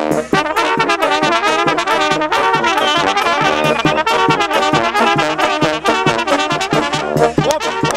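Brass band music: trumpets and horns playing a lively tune over a steady drum beat.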